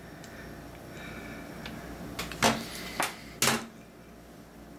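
A few sharp clicks and knocks as the cassette recorder's case and chassis are handled and lifted apart, the loudest about two and a half and three and a half seconds in.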